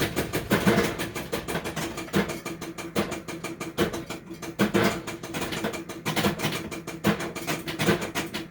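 A 1961 Midway Rifle Gallery arcade shooting game in play: a steady blower hum under rapid clicks, several a second, as the rifle fires nylon balls in quick succession.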